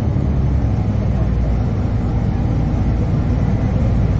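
Steady low running noise of a 2009 NABI 40-LFW diesel-electric hybrid transit bus, with its Cummins ISB 6.7L drivetrain and road noise heard from inside the passenger cabin.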